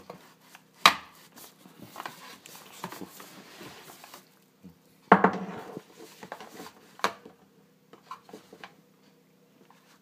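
Cardboard box and plastic wrapping rustling while an electric kettle's plastic power base is unpacked and handled, with a few sharp knocks, the loudest about five seconds in.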